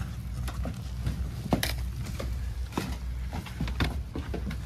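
Low, steady engine hum with scattered knocks and clicks over it, the sharpest about a second and a half in.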